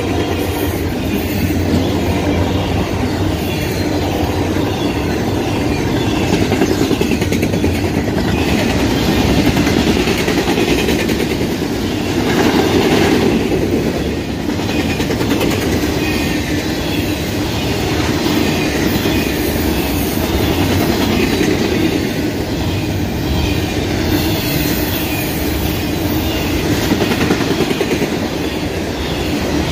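Double-stack intermodal freight train rolling past, its container cars making a steady noise of steel wheels on the rails.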